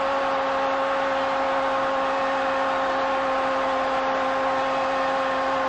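A sports commentator's long, held goal cry: one unbroken 'goooool' on a steady pitch, carried over stadium crowd noise.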